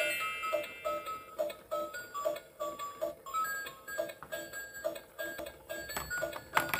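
A toy microwave running: a simple electronic tune over a steady tick about two and a half times a second, with a couple of sharp clicks near the end.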